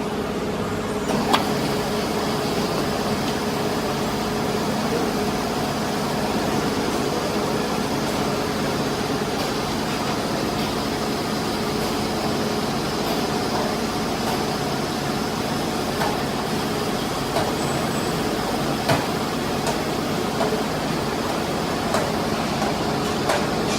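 Automatic lathe running while machining a forged part: a steady machine hum with a few sharp clicks spread through it.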